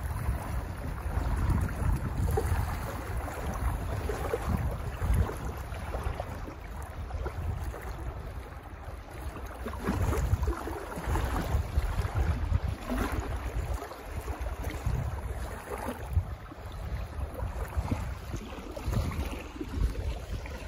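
Wind buffeting the microphone, over small choppy lake waves lapping and splashing close by.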